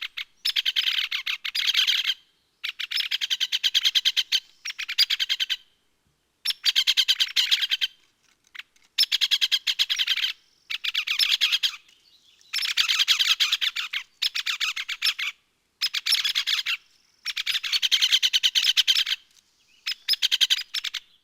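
Woodpecker sound effect: a dozen or so rapid rattling bursts, each lasting one to two seconds, with short pauses between them.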